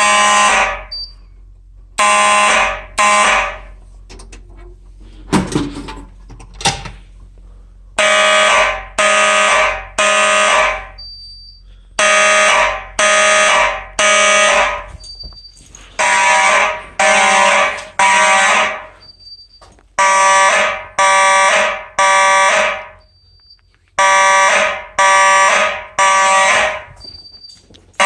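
Simplex electromechanical fire alarm horns sounding together in the temporal-three evacuation pattern: three buzzy half-second blasts about a second apart, then a pause of about a second and a half, repeating. A few seconds in, the horns drop out for about four seconds, with a couple of knocks in the gap.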